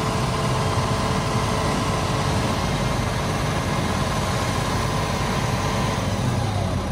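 Heavy machinery engines running steadily, heard from inside an excavator's cab while a dump truck tips its bed to unload mud. A faint steady whine in the mix fades out about six seconds in.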